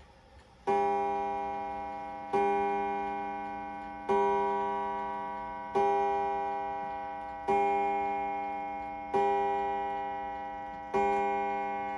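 Waterbury Adamantine-style mantel clock striking the hour: seven evenly spaced strikes, each ringing out and fading before the next, counting seven o'clock.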